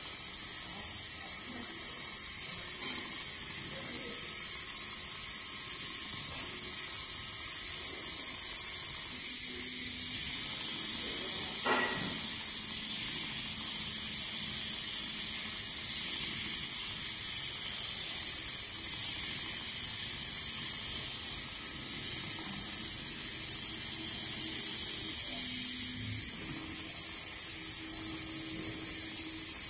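Large automatic sewing machine running as it stitches a leather panel: a steady, high-pitched hissing whir. A single short knock about twelve seconds in.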